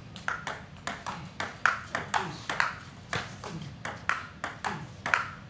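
Table tennis rally: the celluloid-type ball clicks sharply off bats and bounces on the table at about three hits a second. The bats are faced with long-pips and medium-pips rubber.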